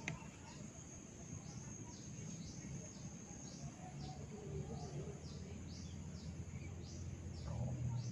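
Short high chirps from a small animal, repeating evenly about twice a second, over a low steady hum; a faint click right at the start.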